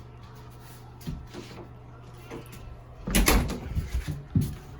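A faint steady hum, then a loud clatter of knocks about three seconds in and a single sharp click near the end, like a door or cupboard being handled.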